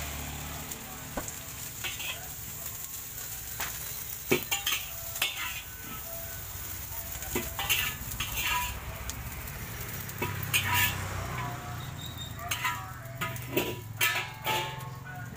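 Metal spatula scraping and clinking against a stainless steel wok while fried rice sizzles in it, with repeated sharp metal strikes over a steady sizzle and a low steady hum underneath.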